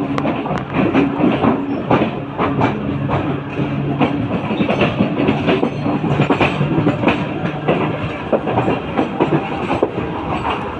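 Mumbai suburban local electric train running steadily, its wheels clattering over the rail joints with a steady low hum underneath.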